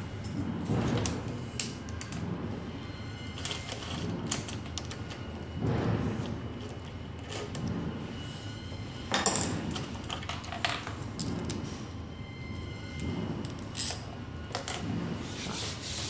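Scattered clicks, taps and rubbing from hands handling a pit bike's ignition switch, key, wiring and plastic panels. The loudest knock comes about nine seconds in.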